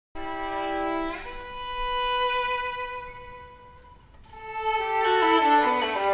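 Violin music: a chord sounds at once, then a long held note fades away. About four seconds in, the violin comes back louder with a run of notes stepping downward.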